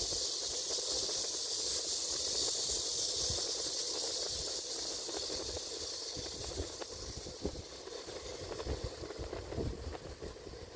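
A steady, high-pitched insect chorus that grows fainter over the second half, with scattered low knocks near the end.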